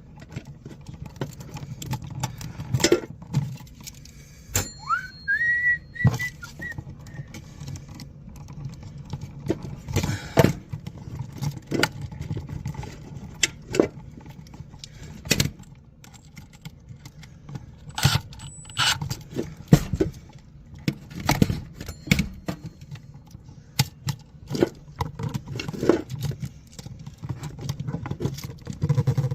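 Scattered clicks, taps and knocks of hands working with tools and wiring, over a steady low hum. About five seconds in there is one short whistle that rises and then holds its pitch.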